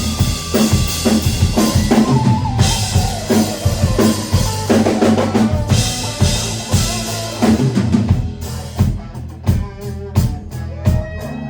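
Live rock band playing, with a full drum kit (kick, snare and rimshots) driving the beat over a steady bass line. In the last few seconds the drums break into a fast run of hits.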